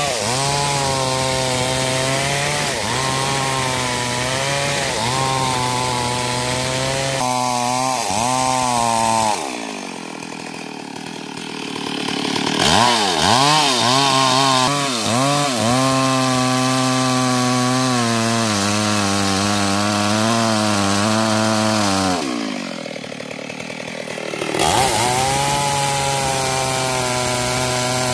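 Stihl MS 382 two-stroke chainsaw cutting into the base of a mahogany trunk at full throttle, its engine pitch sagging and recovering as the chain bites. Twice it drops back to a quieter idle for a couple of seconds, about ten seconds in and again past twenty seconds, then revs up and cuts again.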